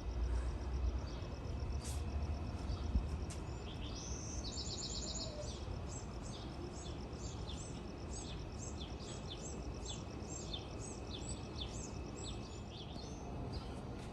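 A small bird calling: a quick buzzy trill about four seconds in, then a long run of short, high, downward-slurred chirps, about two a second, over a low steady outdoor rumble.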